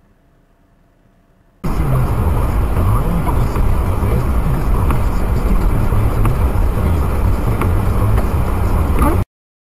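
Car driving on a snowy road, heard through a dashcam inside the cabin: a steady low rumble of road and engine with a few light clicks. It starts suddenly about one and a half seconds in and cuts off sharply near the end.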